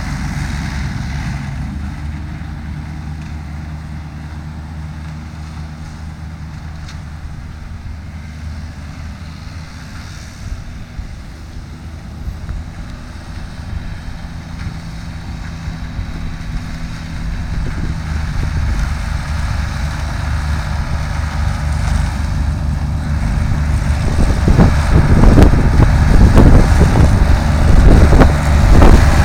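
Ford tractor engine running under load, driving a 1967 Taarup trailed forage harvester cutting silage grass. It fades a little at first, then grows steadily louder as it approaches over the second half.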